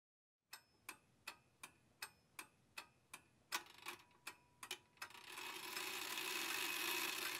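Even, clock-like ticking, about two and a half ticks a second, on a soundtrack that is otherwise nearly silent. About five seconds in, a soft hissing swell rises gradually beneath the ticks.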